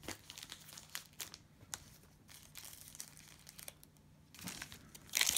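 Cellophane trading-card pack wrapper crinkling as it is handled and torn open, in scattered crackles with a louder burst of crackling near the end.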